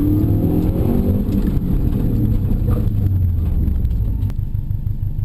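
Subaru Impreza STI RA's turbocharged flat-four engine, heard from inside the cabin, falling in pitch as the car slows for a stop. It settles into an evenly pulsing idle from about four seconds in.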